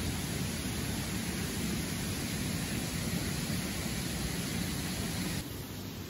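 Steady rushing of a mountain stream, an even hiss of flowing water with no distinct events; its tone shifts slightly near the end.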